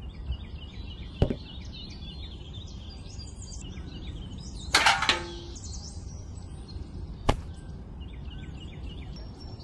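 Small birds chirping over steady outdoor background noise, with two sharp clicks and a short noisy burst about halfway through.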